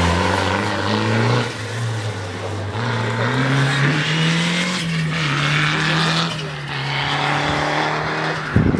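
Peugeot 207 rally car engine pulling hard under acceleration as the car passes and drives away. The engine pitch climbs, drops back at a gear change, then climbs again and holds. A brief thump comes near the end.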